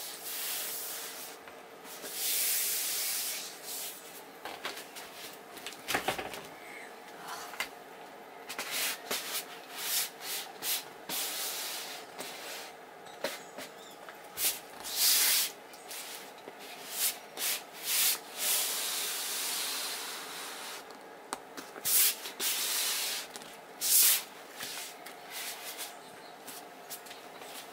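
Hand and bare feet rubbing and pressing a peel-and-stick floor plank down onto a wooden floor: repeated scuffing rubs, some brief and some lasting a few seconds.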